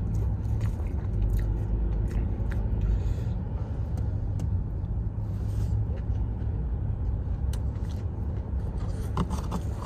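Steady low rumble of a car idling, heard inside the cabin, with scattered small clicks and mouth noises of someone eating: chewing a fry and licking his fingers, the cardboard fries box handled.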